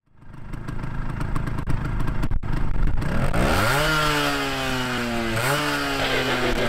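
S.I.S. Sachs V5 moped's small two-stroke engine running at low revs, uneven and popping, then revved up about three seconds in and held high. The revs dip briefly and climb again near the end.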